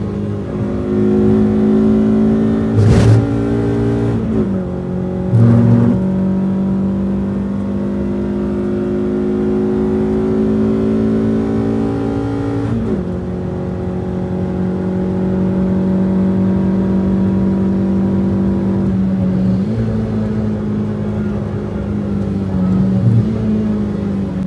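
Renault Twingo RS's 1.6-litre four-cylinder engine heard from inside the car on track, pulling through long stretches with its note climbing slowly and stepping in pitch at several gear changes. Two short sharp knocks come a few seconds in. With the front pads worn out, the car is being slowed largely on the engine.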